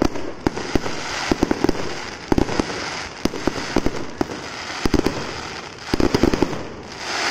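Fireworks going off close by: rapid clusters of sharp bangs and crackles over a continuous hiss of spraying sparks. A louder hiss swells near the end.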